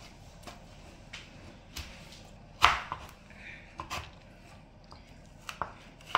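Kitchen knife slicing through watermelon on a cutting board: a scatter of short knocks as the blade goes through and meets the board, the loudest about two and a half seconds in.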